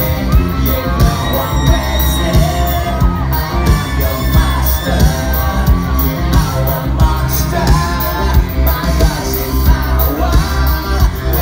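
Live rock band playing loud through a concert sound system: a sung vocal melody over bass guitar and a steady drum beat.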